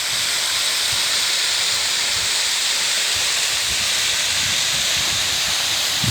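Katoomba Falls waterfall rushing: a loud, steady hiss of falling water.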